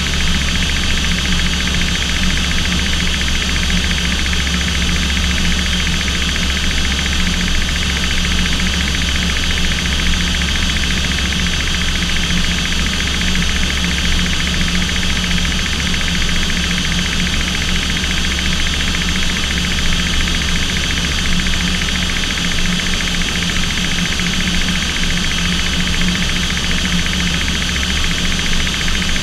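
Aircraft engine and airflow noise heard inside the cockpit in flight: a constant loud drone made of several steady hums and whines, unchanging in pitch throughout.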